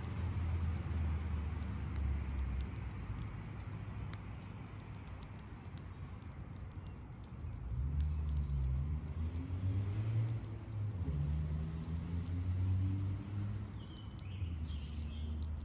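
Outdoor ambience under a low rumble that swells in the middle with a pitch sliding up and down, over faint scattered clicks of a chipmunk chewing nuts. A short high chirp comes near the end.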